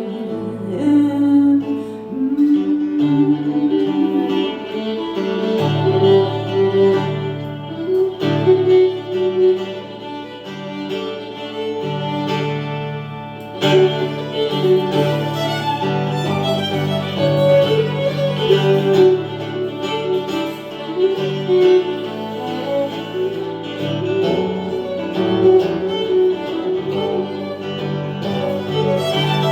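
Instrumental break of a folk song: a violin melody over guitar accompaniment.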